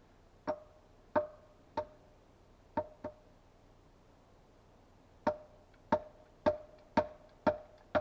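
Hard, ringing knocks of a tool striking a log: five uneven blows, a pause of about two seconds, then a steady run of about two blows a second.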